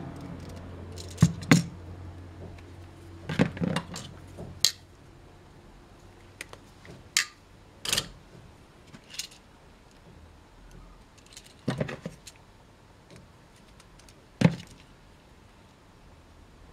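Scattered clicks and taps of a small screwdriver and wire ends on a plastic ПНВС push-button switch as a lead is fastened to its terminal, about a dozen sharp knocks at irregular intervals.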